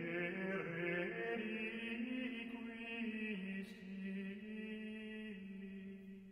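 Voices singing a slow chant-like hymn, with long held notes that step slowly from pitch to pitch.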